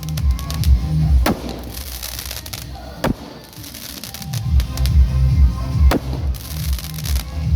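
Firecrackers going off in sharp bangs, about four of them, with faint crackling between, over loud music with a heavy bass beat that drops away for a second or so in the middle.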